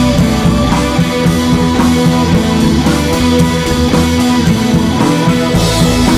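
Background rock music with electric guitar and drums, a steady beat.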